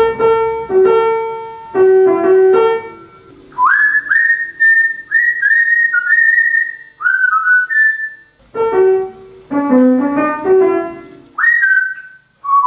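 A keyboard plays short phrases of notes, and a parrot answers each phrase by whistling a run of clear notes that swoop up at each start. This happens twice: keyboard, whistles, keyboard, whistles.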